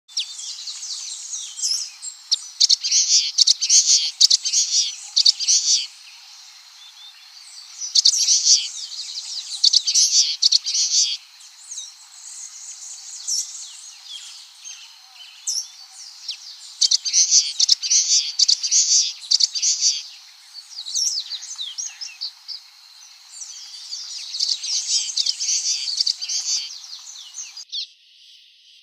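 Common waxbill (bico-de-lacre) singing: bouts of rapid, high chirping notes come four times, with quieter chirps in the gaps between them.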